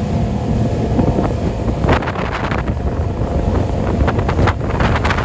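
Motor running steadily while under way, with wind buffeting the microphone. Two brief sharp sounds stand out, about two seconds in and near the end.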